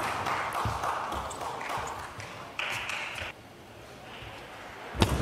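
Arena crowd applause fading out over the first few seconds. The hall then goes quiet, and near the end sharp clicks of a table tennis ball start again.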